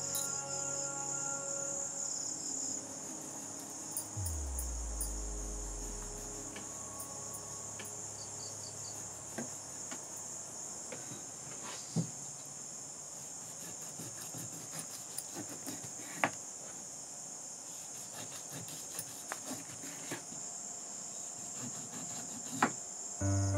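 Steady high chirring of crickets, with scattered soft clicks and taps from handling the fish. Background music fades out over the first few seconds and comes back just before the end.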